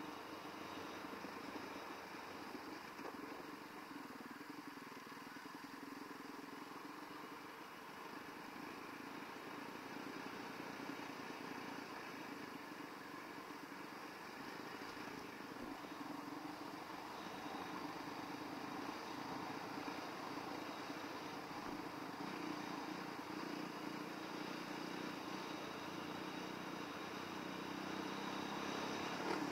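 A 2019 Yamaha WR450F's single-cylinder four-stroke dirt-bike engine running on the move, its pitch drifting slowly up and down and growing louder near the end.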